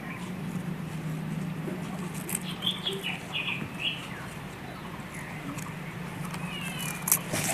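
Nestlings in a hanging tubular nest chirping: a quick run of about five short, falling high cheeps a couple of seconds in, and another brief run near the end. Faint scattered clicks and rustles and a low steady hum sit underneath.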